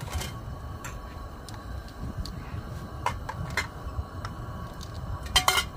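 Scattered light clicks and knocks of camping cookware and plastic dishes being handled and set down, with a louder clatter of several sharp clinks near the end.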